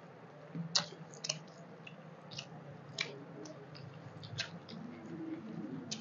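Close-miked eating by hand: rice and curry squished between fingers and mouths chewing, heard as irregular short wet clicks and smacks, one or two a second, over a low steady hum.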